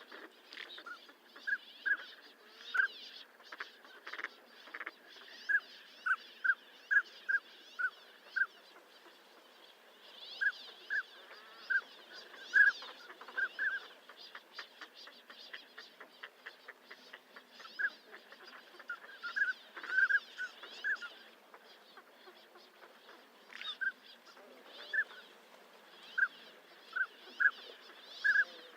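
Northern pintail calling: short whistled notes, often several a second in loose series with gaps between them. A quick run of ticks comes about halfway through.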